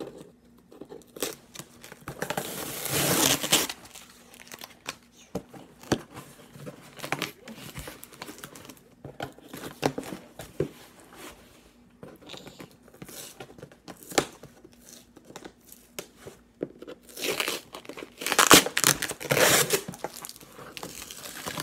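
A cardboard shipping box being opened by hand: tape and packing material tearing and crinkling in noisy bursts. The longest burst comes a couple of seconds in and a loud run of them near the end, with scattered small rustles and taps between.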